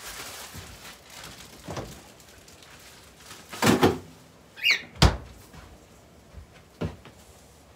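A few separate knocks and thuds of doors or cupboards being opened and shut in a kitchen, loudest just past the middle, with a short high squeak just before the loudest knock.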